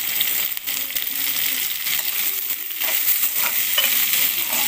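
Onion slices and moringa drumstick pieces sizzling in hot oil in a pan, a steady hiss. From about three seconds in, a metal spatula scrapes and clinks against the pan as they are stirred.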